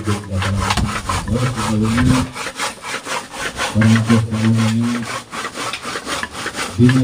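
Quick, even knife strokes on a wooden cutting board, about six a second, as long beans are chopped.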